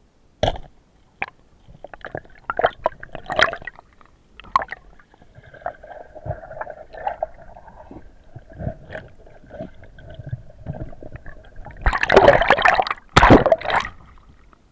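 Underwater knocks and bumps, muffled as heard from a camera under water, as a spearfisher struggles with a speared Atlantic salmon, with a steady hum in the middle. About twelve seconds in comes loud splashing and sloshing as he breaks the surface with the fish.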